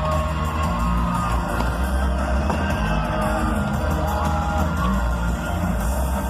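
Live pop concert music through a stadium sound system, with a heavy bass and singing, and a crowd yelling over it.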